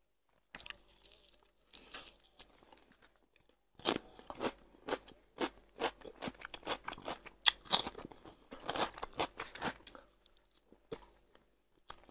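Mouth sounds of eating fresh cucumber with smoked fish: quiet at first, then a dense run of wet crunches and chewing from about four seconds in until about ten seconds, thinning out near the end.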